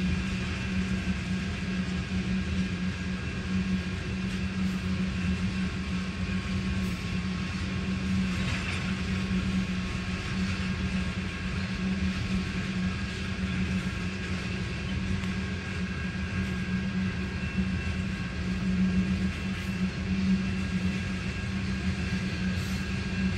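Freight train of oil tank cars rolling steadily past, heard from inside a car: a continuous low rumble with a steady hum.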